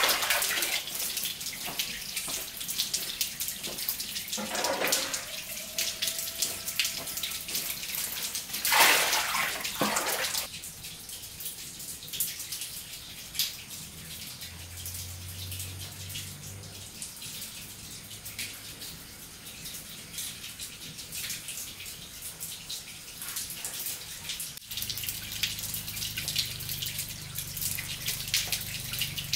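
Water splashing and trickling, with two louder surges of splashing about four and nine seconds in.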